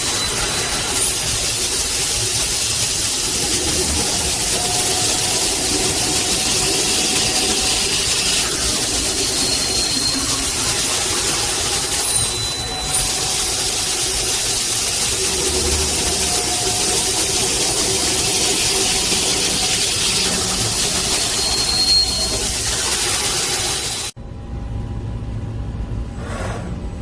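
CNC H-beam drilling machine running and drilling steel: a loud, steady hiss with faint squealing tones over it. About 24 s in, the hiss stops abruptly and a lower machine rumble continues.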